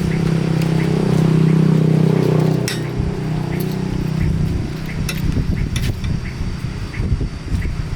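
Small generator engine running: a steady hum for about three seconds, then an uneven, fluttering rumble, with light metallic clinks throughout.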